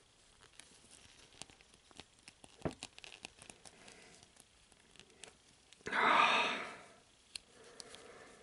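Hard plastic model-kit parts clicking and creaking in the hands as a no-glue snap-fit piece is forced on, with one sharper click a little under three seconds in. About six seconds in, a louder rushing hiss lasts about a second.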